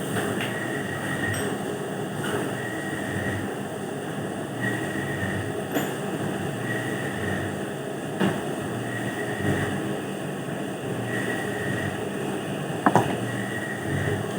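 Steady mechanical running noise with a high tone coming and going about every second and a half, scattered metallic clicks, and a sharper knock near the end.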